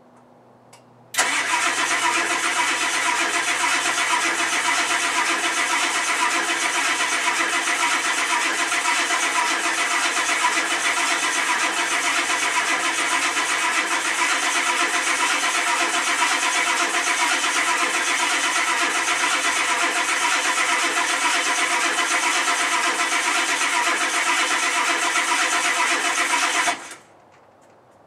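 1991 Ford F-250's 7.3-litre IDI diesel being cranked on the starter on a cold start: one long, steady crank of about 25 seconds that begins and stops abruptly, without the engine catching.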